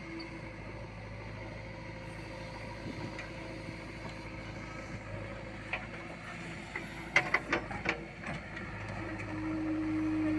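JCB diesel engine running steadily under load, growing louder near the end, with a quick cluster of sharp knocks about seven seconds in.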